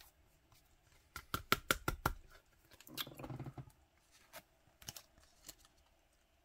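Trading cards being handled: a quick run of light clicks and taps about a second in, a short rustle around three seconds, then a few scattered taps.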